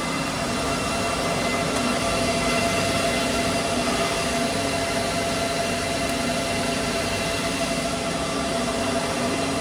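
Cooling fans of ASIC crypto-mining machines running flat out: a loud, steady rush of air with several constant whining tones.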